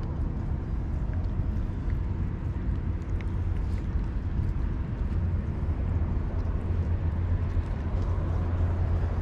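A steady low rumble of outdoor background noise with no distinct call standing out.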